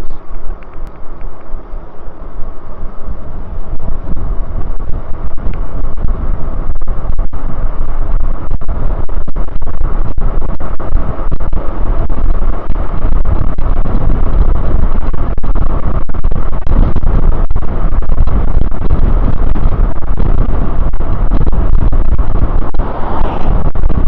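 Wind buffeting the microphone of a camera riding on a moving e-bike: a loud, fluttering rumble that swells over the first few seconds as the bike picks up speed, then holds steady.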